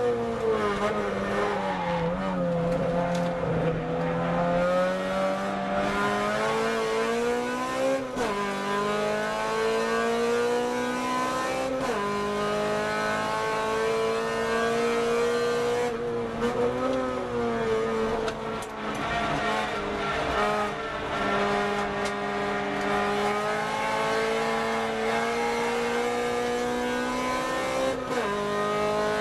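Car engine heard from inside the car on a circuit lap, its pitch climbing under acceleration and dropping sharply at a few gear changes, with slower falls where it eases off for corners.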